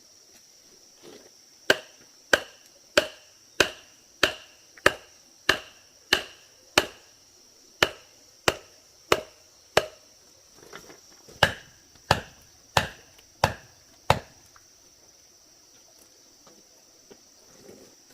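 Steady, evenly spaced tool strikes on bamboo, about three every two seconds with a short break partway through, each with a hollow ringing knock; they stop about two-thirds of the way in. Crickets trill steadily behind.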